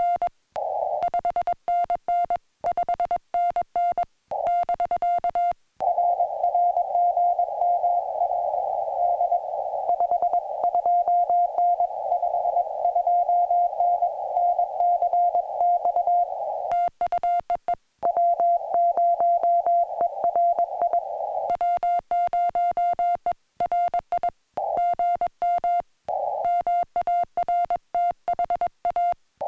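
Morse code (CW) from a portable ham radio: one steady, fairly high-pitched beep keyed on and off in dots and dashes. From about six seconds in until about twenty-one seconds in, the keyed beeps sit under a narrow band of radio hiss, as heard through the receiver's CW filter. Before and after that, the beeps are clean.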